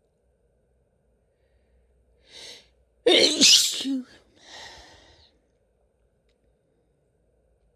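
A woman sneezing once. A short intake of breath comes about two seconds in, then one loud, sudden sneeze with a voiced cry that drops in pitch, and then a softer breathy exhale.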